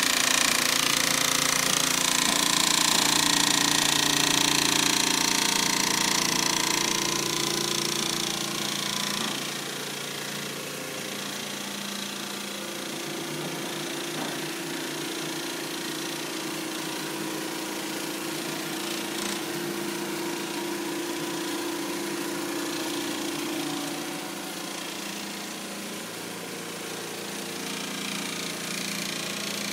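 Mattress quilting machine running, its sewing head rapidly stitching through a quilted mattress panel: a dense, steady mechanical chatter with a machine hum underneath. It is louder for the first several seconds and softer from about nine seconds in.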